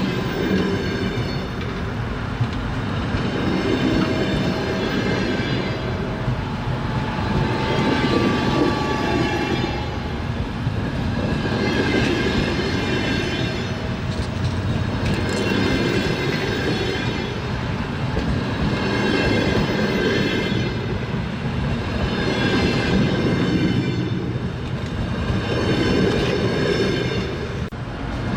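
Train wheels clattering over the rails as a train runs along, a steady rumble that swells and eases about every four seconds.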